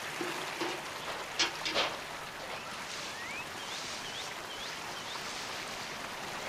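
Steady rush of flowing water with a few soft knocks about a second and a half in. Then a bald eagle calls: one thin rising call followed by four quick, high, hooked chirps.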